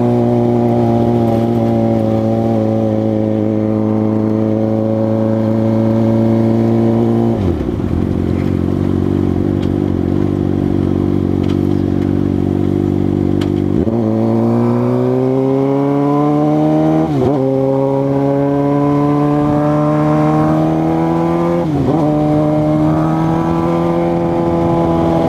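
2006 Suzuki GSX-R600's inline four-cylinder engine under way at speed: a steady note, a sudden drop in pitch about seven seconds in, then from about halfway it climbs in pitch again and again, dipping briefly at each gear change as the bike accelerates through the gears.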